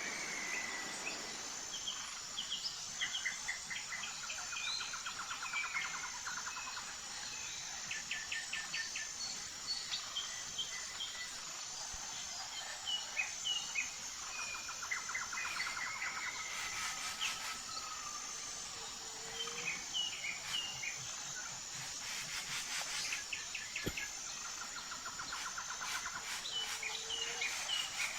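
Several birds calling, with short chirps and quick trills coming again and again, over a steady, high-pitched, pulsing insect drone.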